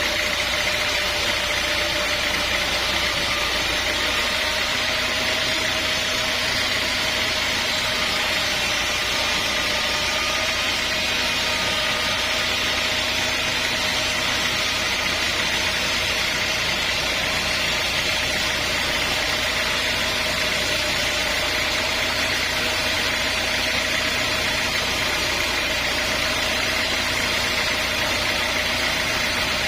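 Sawmill machinery running steadily: an even mechanical drone with a constant high whine.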